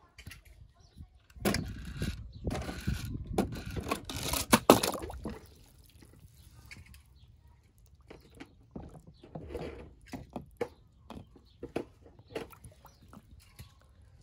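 A plastic toy monster truck handled in a plastic tub of water: water splashing and sloshing in bursts, with light plastic knocks and clicks, one sharp knock near the middle.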